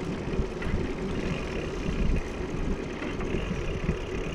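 Wind buffeting the microphone of a camera riding on a moving bicycle, mixed with tyres rolling on asphalt: a steady, ragged low rumble.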